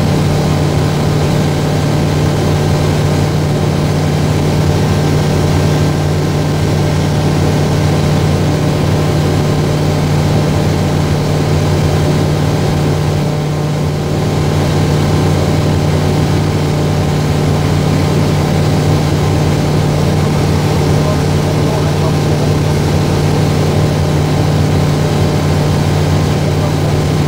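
Steady drone of a light aircraft's engine and propeller in cruise flight, heard from inside the cockpit of an Aero AT-3, dipping slightly in level about halfway through.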